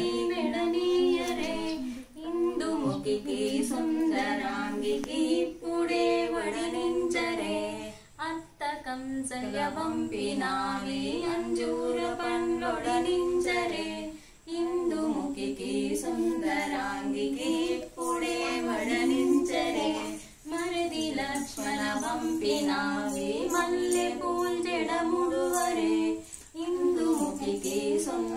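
Women's voices singing a devotional aarti song unaccompanied, in short repeating phrases with brief breaks between them.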